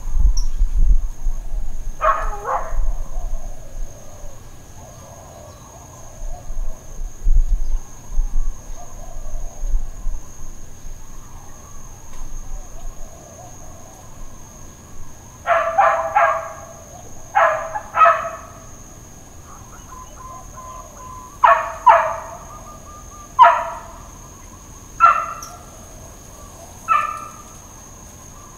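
A dog barking intermittently at a distance: a single bark early on, then a run of about nine barks, one every second or two, through the second half.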